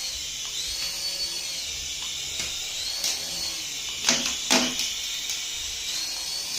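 High-pitched whine of a remote-control toy's small electric motor, its pitch rising and falling as the throttle is worked. Two sharp knocks a little over four seconds in.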